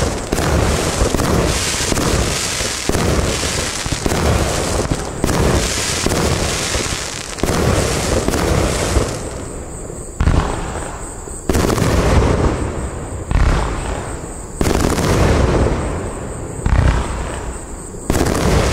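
Iskra Bajka SFC42 compound firework cake firing, with shots and shell bursts coming thick and overlapping at first. About halfway through they thin to single sharp shots every second or two, each followed by a fading rush of noise.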